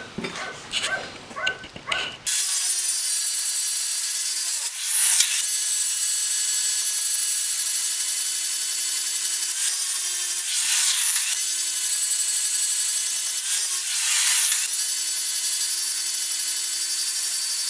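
A couple of seconds of handling knocks, then a power grinder running with a steady tone as a drill-rod steel bar is pressed to it, grinding a flat on the digging bar's end. The grinding falters briefly three times as the work is shifted.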